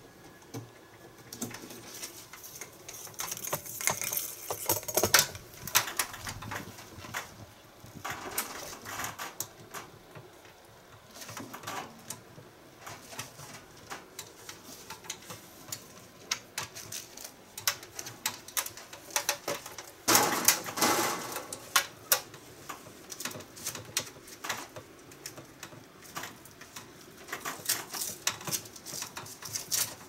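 Irregular clicks, creaks and rustles of hands bending an air conditioner's insulated copper refrigerant pipes, done gently so the pipe does not kink. There is a louder stretch of rustling about twenty seconds in.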